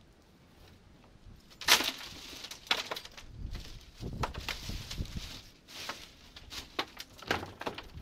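Grey wheeled plastic trash bin's lid banging open and pieces of a smashed plastic box fan clattering and rustling into the bin, with the lid knocked shut near the end: a string of irregular sharp knocks, the loudest about two seconds in.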